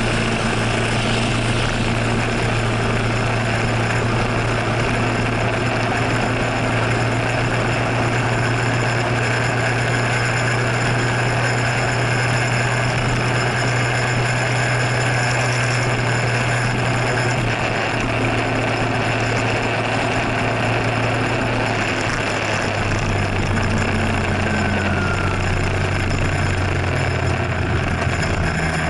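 Motor scooter engine running at a steady cruising speed over a continuous rush of wind and wet road noise. Its note drops in pitch in steps during the last third as the scooter slows for traffic ahead.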